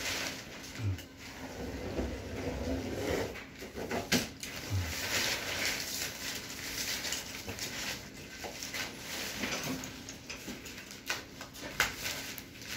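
Clear plastic sheeting crinkling and rustling as it is handled and pulled at the ceiling, with a few sharp clicks.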